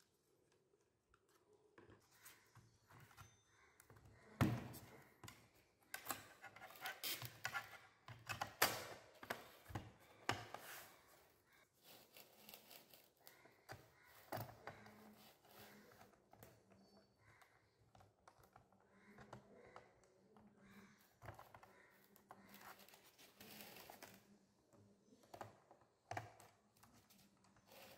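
Handling noise of a laptop's drive caddy and plastic drive-bay cover being fitted: scattered clicks, knocks and rubbing, with a louder thunk about four seconds in and another near nine seconds.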